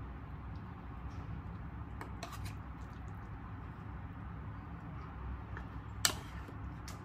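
Quiet indoor room tone with a steady low hum and a few light clicks and knocks, the sharpest about six seconds in.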